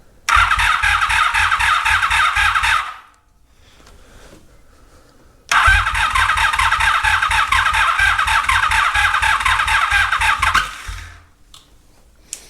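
Electric starter cranking the 1983 Honda Magna V45's 90-degree V4 engine in two bursts, a short one and then a longer one about five seconds later. Each burst is a rapid rhythmic chugging of compression under the starter's whine, and the engine does not catch. The starter grows warm from the cranking.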